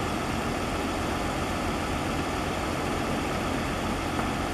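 Jet engines of an Airbus A321 climbing away after takeoff, heard as a steady, even rumble and hiss that holds at one level.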